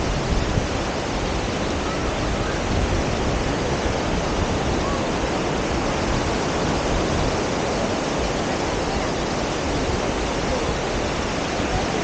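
Steady wash and hiss of small waves breaking and running up a sandy shore, with no distinct single events.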